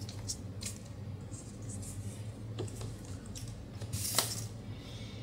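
Handling noises of an unboxing: light taps and rustles as a tablet and cardboard packaging are moved about on a table, with a louder brushing scrape about four seconds in as a small cardboard box is picked up.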